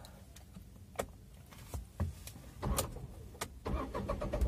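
Car being started from cold: a few light clicks from the key and ignition, then the starter begins cranking the engine near the end, with a low rumble building as it is about to catch.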